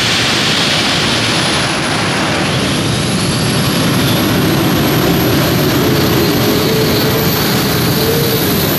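Isotov TV3-117M helicopter turboshaft engines of a modified pulling tractor running at high power. The sound is a loud, steady jet-like roar with a high whine on top that creeps slightly upward in pitch.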